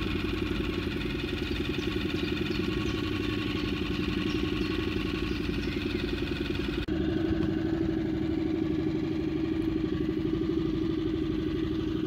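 Small boat motor running steadily at low trolling speed. It breaks off briefly about seven seconds in and resumes slightly louder.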